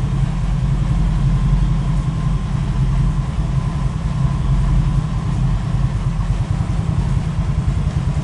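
Yamaha Nouvo Elegance scooter's single-cylinder four-stroke engine idling steadily, with no revving.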